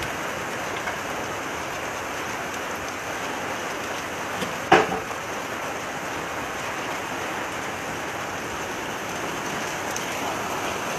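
Steady hiss of rain falling, with one brief sharp sound about five seconds in.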